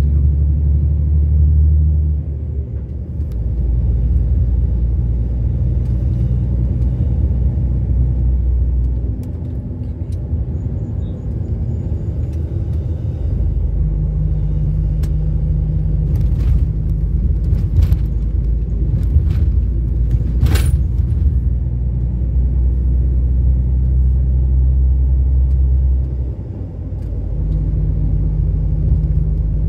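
Vehicle engine and road noise heard from inside the cab while driving: a loud, low drone whose pitch steps down and up a few times, with a handful of sharp clicks around the middle.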